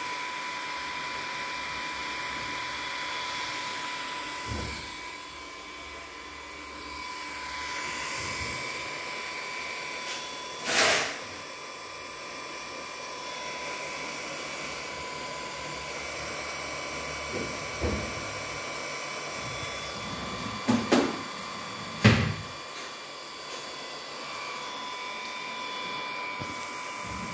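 Twin small cooling fans of a Murata D1U-W-2000-48 power supply running while it is powered on, a steady whir with a high whine. A few short knocks cut through, one about midway and two close together later on.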